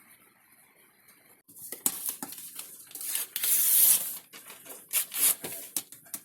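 Crackling rustle and sharp clicks of something being handled, starting about a second and a half in and loudest for a moment about two and a half seconds in.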